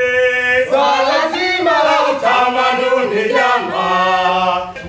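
Voices singing a chant in long, held notes that slide between pitches, with no drums underneath.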